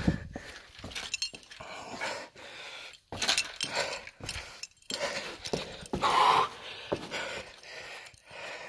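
A person breathing hard in irregular, noisy breaths, with scuffing footsteps and handling knocks on a rocky cave floor.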